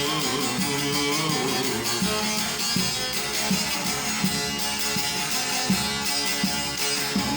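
Instrumental interlude of a Turkish folk song (Kayseri türküsü), led by a plucked string instrument with a steady strummed rhythm and no singing.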